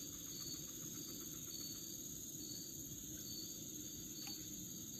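Faint insect chirping, a short high chirp about once a second, over a low steady background hiss, with one faint click a little after four seconds.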